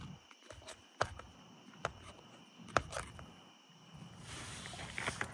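A few separate sharp clicks or knocks, roughly a second apart, then a low rustling noise building near the end.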